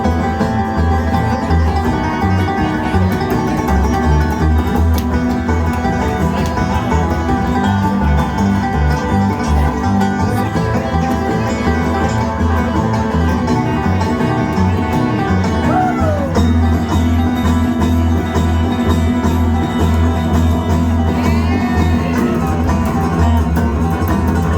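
Live bluegrass band playing an instrumental passage with no singing, banjo and guitar picking over a steady bass line.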